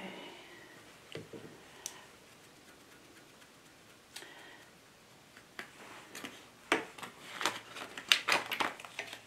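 Paintbrush bristles scrubbing and flicking against the sewing machine's presser foot to clear lint: a couple of light taps at first, then a quick, irregular run of scratchy brush strokes through the second half.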